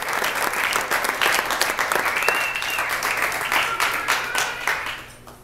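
A roomful of people applauding, dense clapping that dies away near the end.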